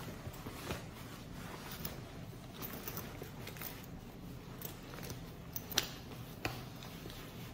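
Leather motorcycle vest rustling as it is pulled on, then its large metal front zipper being worked closed, with a couple of sharp clicks near the end.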